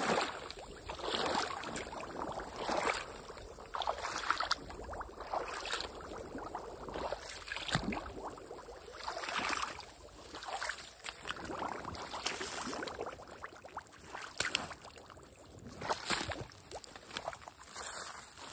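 High-heeled leather boots wading through a shallow stream, water splashing and sloshing with each stride, about one splash every second or so.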